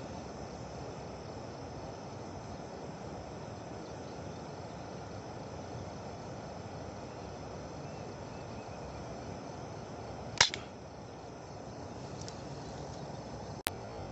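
A steady drone of insects and crickets, broken about ten seconds in by one sharp shot from a hunting air rifle, followed by a brief click near the end.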